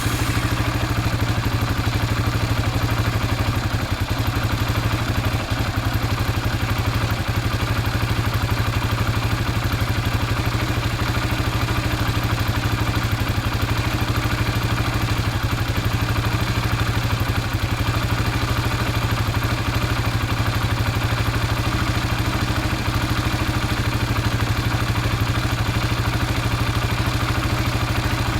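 Motorcycle engine idling steadily, with a fast, even firing beat that holds the same pitch throughout.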